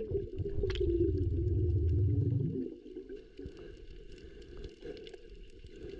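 Muffled underwater sound picked up by a camera in shallow water: a low rumble of moving water that drops to a quieter wash about two and a half seconds in, with faint scattered clicks and ticks.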